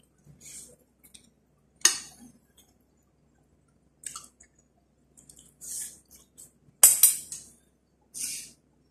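Metal spoon and fork clinking and scraping on ceramic plates, with two sharp clinks, one about two seconds in and a louder one near seven seconds, and softer short scrapes between them.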